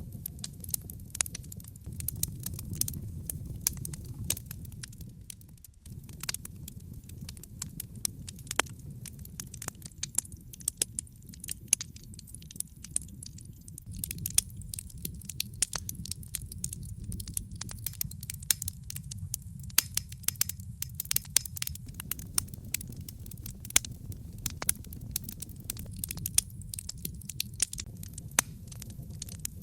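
Wood fire burning in a fireplace: logs crackling with frequent irregular sharp pops and snaps over a steady low rumble of the flames.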